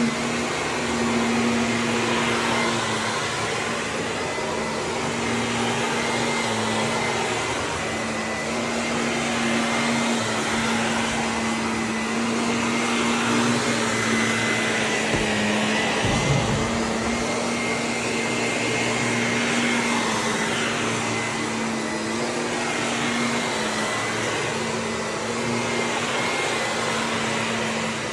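Vacuum cleaner running steadily: a constant motor hum under a rush of air that swells and fades as it is moved about, with a brief low bump about halfway through.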